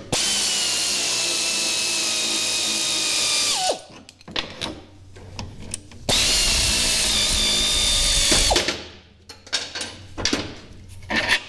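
Pneumatic air ratchet with a 10 mm socket running in two spells, about three and a half seconds and then about two and a half seconds, with a steady whine, as it spins off the bolts of a golf cart's rear leaf spring assembly. Light clicks of tool and hardware handling come between the runs and near the end.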